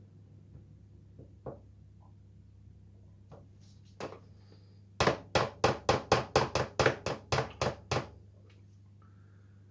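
A few single sharp knocks, then a quick run of about a dozen hard knocks, roughly four a second, for about three seconds: something hard rapped repeatedly on a kitchen worktop. A steady low electrical hum runs underneath.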